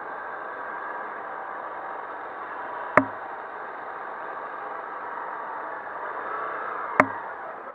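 Hero Hunk motorcycle's single-cylinder engine running steadily at idle. Two sharp clicks cut through it about four seconds apart.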